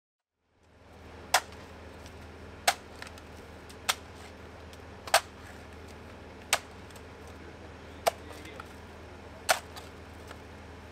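A digging tool striking stony ground, sharp strikes about once every second and a half, eight in all, over a steady low machine hum.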